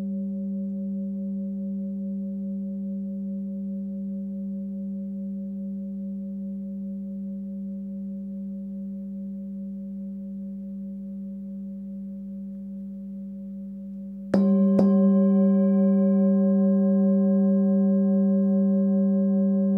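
Hand-forged singing bowl tuned to about 193 Hz (G) ringing. A deep steady hum with several higher overtones wavers slightly and slowly fades. About fourteen seconds in, the bowl is struck twice in quick succession and rings out louder, with brighter overtones.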